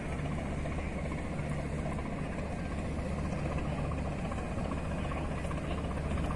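Steady low drone of a ship's engine, a deep, unchanging hum under a broad rushing noise.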